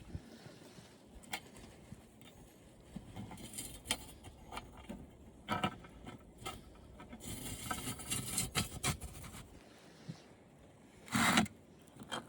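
Scattered clicks, knocks and scraping of plastic and metal parts being handled and pried apart while dismantling an old television, with a louder crack or clatter about eleven seconds in.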